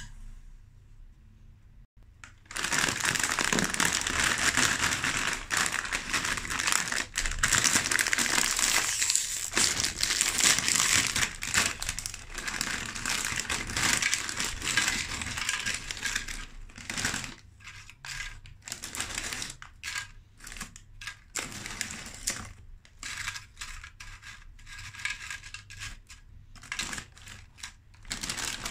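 Foil snack bag crinkling as tortilla chips are poured out of it into a plastic plate, the chips rustling and clattering. Starts a couple of seconds in as a loud, dense rustle that thins into scattered crackles and clicks in the second half.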